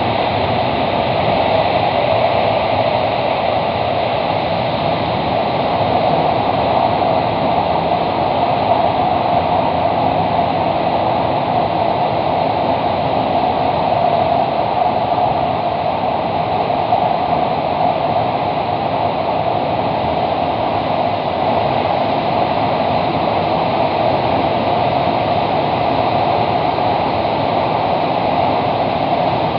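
Kawasaki–CRRC CT251 metro train running at speed through a tunnel, heard from inside the leading car: a steady rushing noise of wheels on rail and air.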